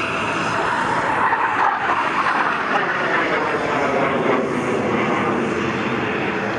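Military jet engine roar from a fast, low display pass overhead. About a second in, the roar falls in pitch as the aircraft goes by.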